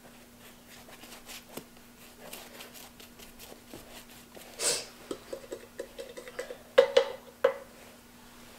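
A paintbrush brushing and dabbing liquid Varathane sealer onto a fabric hat, soft short strokes and ticks, with a louder brushing rustle about halfway through. A few sharp knocks come about seven seconds in.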